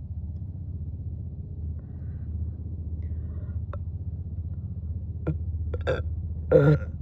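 A woman belching once, short and loud, near the end, a burp brought up from gulped sparkling water; a couple of shorter, sharp sounds come a little before it. A steady low hum of the car runs underneath.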